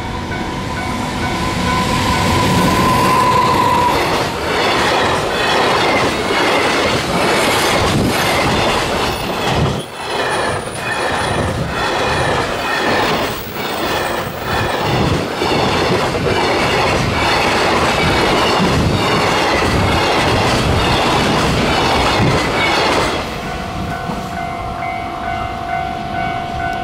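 EF200 electric locomotive hauling a long container freight train past at speed. The wagon wheels clack over the rail joints in a fast, even rhythm for about twenty seconds, and the sound drops away suddenly as the last wagon passes. A level-crossing alarm rings steadily before and after.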